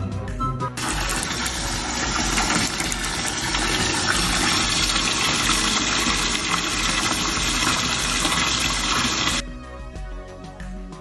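Water running hard from a tap into a bathtub, a steady rushing that starts about a second in and cuts off near the end, with background music underneath.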